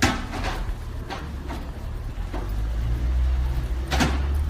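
City street traffic: a steady low rumble, with a few short knocks and scuffs of footsteps on the pavement, the strongest at the very start and another near the end.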